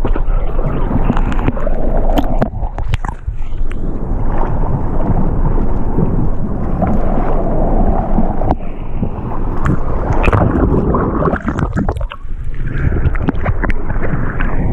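Sea water sloshing and splashing around a surfboard's nose as it pushes through choppy water and broken whitewater, heard from a camera mounted on the board at water level: a loud, steady low rush with a few sharp splashes.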